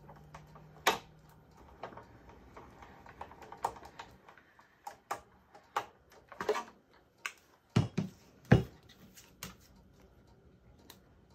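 Irregular clicks and knocks of a plastic embossing folder being run through a manual embossing machine, then pulled out and set down on the table. The loudest knocks come about eight seconds in.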